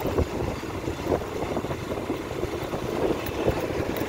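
Motorbike ride: steady engine and road noise, with wind buffeting the microphone.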